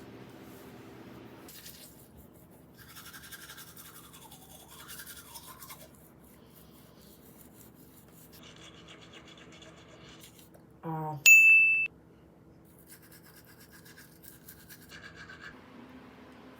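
Several stretches of scratchy rubbing or scrubbing noise over a steady low hum, with one sharp, high-pitched tone about eleven seconds in, the loudest sound.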